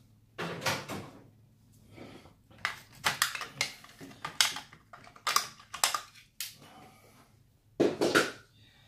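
Small hard plastic and metal RC truck parts and tools being picked up and set down on a workbench, making irregular clicks and clatters.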